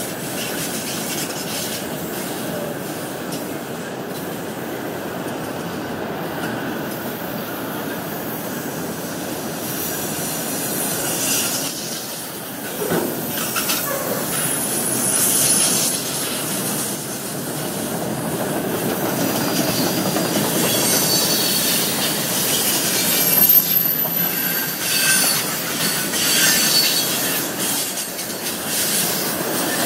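Freight train of autorack cars and boxcars rolling past close by: a steady rumble and clatter of steel wheels on the rails. High wheel squeals come and go in the second half.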